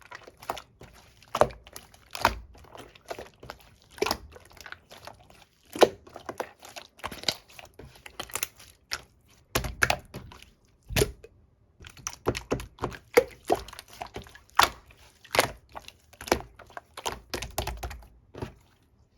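Jiggly melon-pudding slime being poked and squished by hand: an irregular string of sticky clicks and wet pops, some landing with a soft, low plop.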